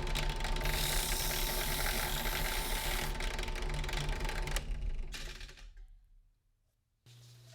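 Rapid mechanical clicking and whirring from a small mechanism or hand tool at work, fading away after about five seconds. About seven seconds in it cuts to a low steady hum.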